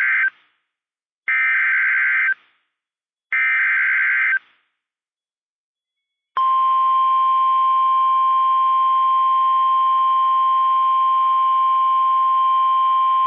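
NOAA Weather Radio SAME digital header being sent as buzzy bursts of about a second each. The tail of one burst is followed by two more, a second apart, which encode the severe thunderstorm warning. After a pause of about two seconds, the steady 1050 Hz warning alarm tone starts about six seconds in and holds; it is the tone that switches on receivers for a warning.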